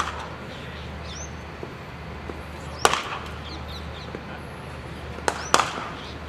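Cricket bat striking a cricket ball in the nets: a sharp wooden crack right at the start, another about three seconds in, and two knocks in quick succession near the end.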